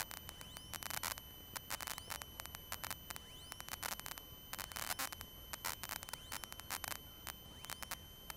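Faint crackling static and electrical hum on the aircraft's intercom audio, with scattered clicks, a steady high whine and a few short rising whistles; the engine and propeller are not heard.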